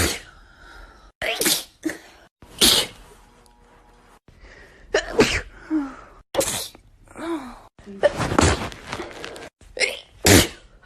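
A string of separate human sneezes, about seven in all, each one sharp and sudden, from short clips cut one after another with a brief silent gap between them.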